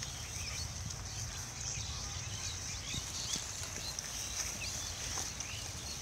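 Pigs rooting and feeding through a pile of plastic litter and dry leaves, with rustling and scattered small knocks. Behind it runs a steady high hiss with many short high chirps.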